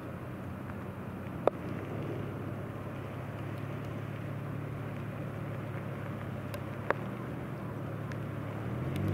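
Cessna 208 Caravan's PT6A turboprop engine and propeller droning steadily as the plane climbs away after takeoff, a low hum with a few steady tones that swells slightly near the end. Two sharp clicks cut through it, about a second and a half in and again about seven seconds in.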